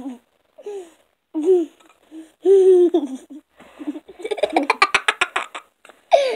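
Young girls giggling and laughing, with short vocal sounds early and a fast run of laughter about four seconds in.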